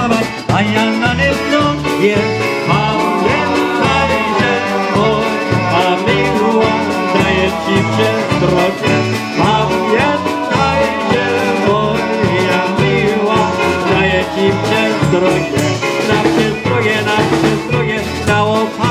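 Live polka band playing: a man sings a Polish song into a microphone over keyboard and drums, with a steady pulsing bass beat.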